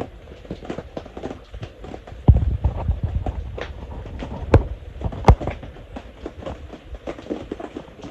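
Irregular light knocks and clicks, with a heavier thud a little over two seconds in and two sharper taps around four and a half and five and a half seconds in.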